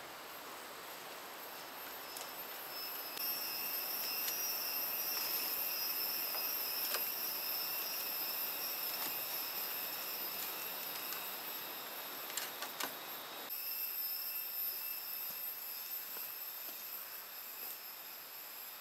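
Insects chirring in a steady high-pitched drone of several layered tones over a hiss, some of the tones dropping out about two-thirds of the way through, with a few faint clicks.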